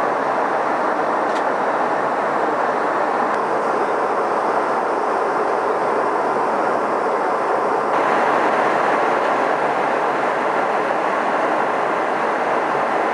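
Steady rushing cabin noise inside a Boeing 717 airliner in flight, made by airflow and the jet engines. It grows slightly louder and brighter about eight seconds in.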